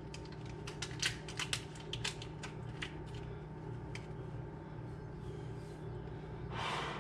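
Crinkling and ticking of a small packet of dry wine yeast being handled: a run of quick sharp clicks for the first few seconds, then a short hiss about six and a half seconds in as the granules are shaken into a cup. A steady low hum runs underneath.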